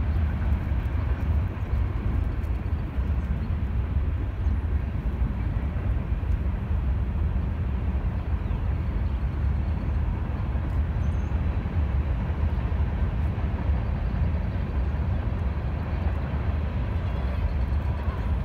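Wind buffeting the microphone outdoors: a steady, uneven low rumble that carries on throughout.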